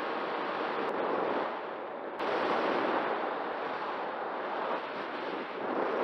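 Rushing airflow buffeting the microphone of an onboard camera on a radio-controlled model plane in flight, a rough, uneven noise that jumps louder about two seconds in.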